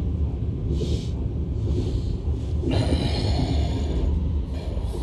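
Electric commuter train running, a steady low rumble heard from inside the carriage. A short noisy breath close to the microphone comes about three seconds in.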